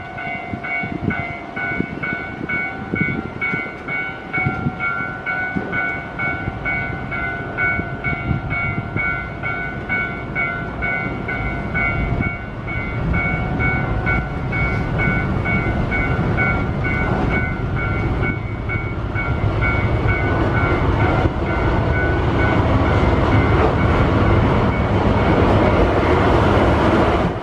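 A train running through a railway station in strong, gusty wind, its rumble building and loudest near the end. A pulsing ringing tone sounds over it through the first half and fades out a little past the middle.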